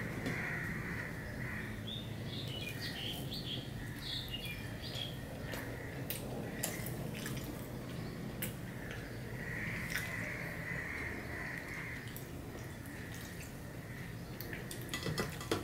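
Quiet eating sounds: fingers tearing roti on a steel plate, with scattered soft clicks against the metal, over a steady low hum. A few faint bird chirps come through a couple of seconds in.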